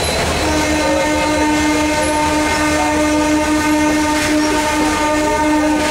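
A train horn sounding one long, steady blast that starts about half a second in and holds to the end, over the continuous rumble and wheel noise of a train running on the track.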